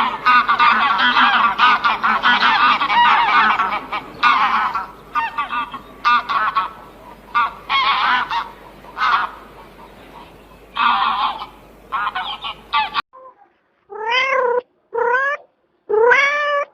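A flock of geese honking, with many overlapping calls that thin out into separate honks. About thirteen seconds in it cuts abruptly to a cat meowing three times, about once a second.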